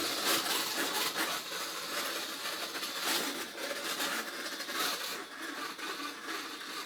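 Sichler NX-9644-675 robot vacuum running as it drives back to its charging dock: a steady, rough, hissing whir of its drive motors, brushes and fan, motors that sound horrible.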